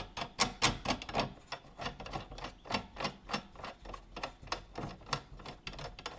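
A steel nut being spun on by hand along the threaded rod of a lawn spreader's rate-control linkage, giving a run of light metallic clicks and ticks, several a second.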